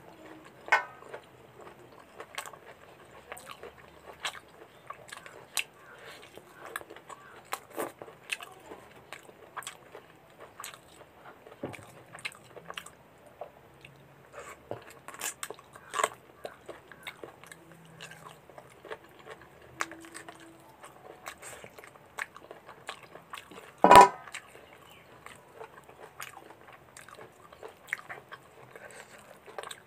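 Close-up eating sounds of mutton curry and puri eaten by hand: wet chewing, biting and lip smacks as many short clicks, with one louder smack late on.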